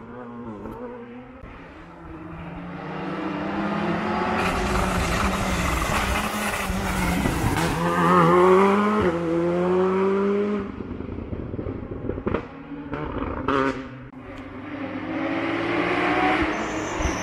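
Hill-climb race car's engine at full throttle, climbing in pitch through the gears with sharp breaks at each shift as it passes close, loudest about eight seconds in, then fading up the hill. Near the end a second race car's engine is heard approaching.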